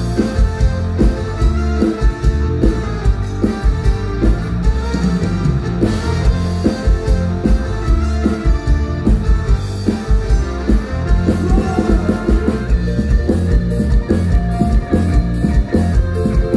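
Live band playing an instrumental passage with no vocals: guitar over a steady drum beat.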